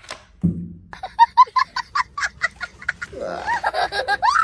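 A high-pitched, squeaky comic sound effect, like cartoon sobbing: a fast run of short calls, about eight a second, then a few rising squeals near the end.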